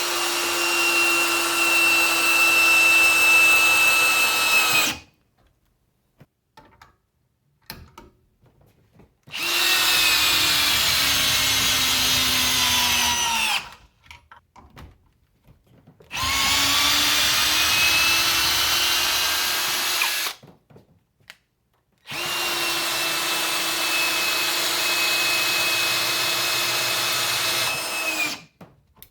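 Parkside Performance PSBSAP 20-LI A1 brushless cordless hammer drill running in four separate bursts of a few seconds each, a steady high motor whine stopping dead between runs. The pitch sags through the second run and climbs at the start of the third.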